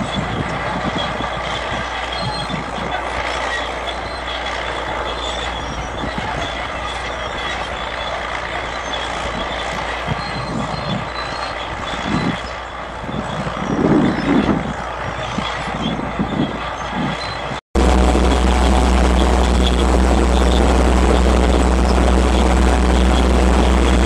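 Crawler tractor's diesel engine working hard while pulling a multi-furrow plough, a steady mechanical drone with some uneven low pulsing. About seventeen seconds in the sound cuts abruptly to a steadier engine drone with a strong low hum.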